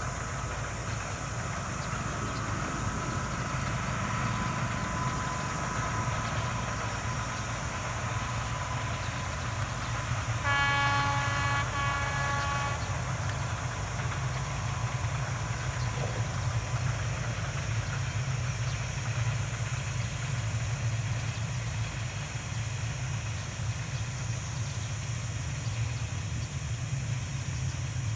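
Freight train with a diesel locomotive running past, a low steady rumble, with two horn blasts of about a second each near the middle.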